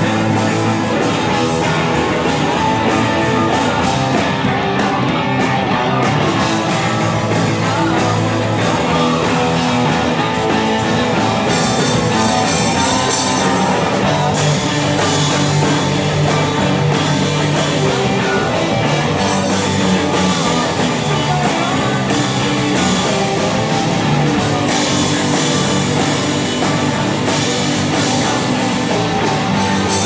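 Live rock band playing: electric guitars, bass and a drum kit, the cymbals growing busier about twelve seconds in.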